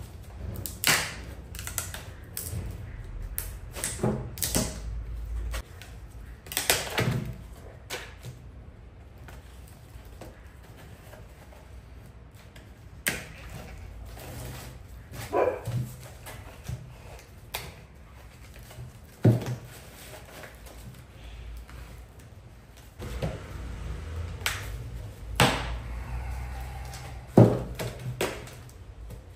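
Plastic demoulding wedges being forced between a composite gauge-pod mould and the part on it, giving irregular sharp cracks and clicks as the two release from each other. A faint low hum lies under them.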